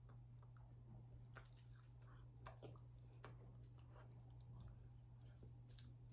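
Near silence: room tone with a steady low hum and faint, scattered small clicks.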